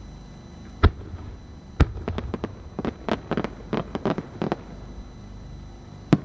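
Aerial firework shells bursting: two sharp bangs about a second apart, then a quick run of smaller pops for a couple of seconds, and two more bangs near the end.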